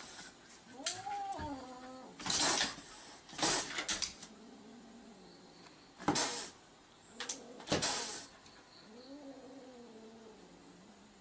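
A cat yowling in three drawn-out, wavering calls, the last one long and falling, with four sharp hisses between them: a cat warning off a dog.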